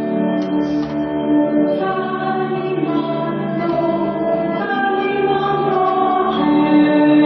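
Music with a choir of voices singing held, slowly moving chords.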